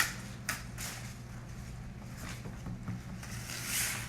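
Packaging being handled and opened: a few sharp clicks and a stretch of crinkling rustle near the end, over a steady low hum.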